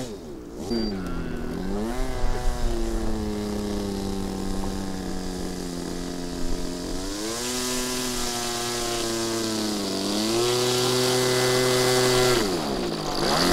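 RC model airplane's engine and propeller running at low throttle as the plane taxis on grass, the engine note holding steady, then stepping up in pitch twice with added throttle and gliding down near the end.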